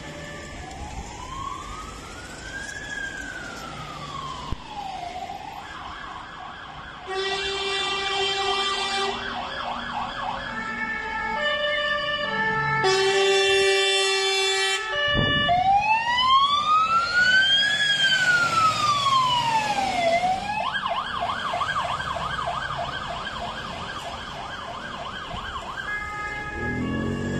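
Polish fire engine on an emergency run, its siren alternating between a slow rising-and-falling wail and a fast warbling yelp, each twice. Two held horn blasts break in, about 7 and 13 seconds in.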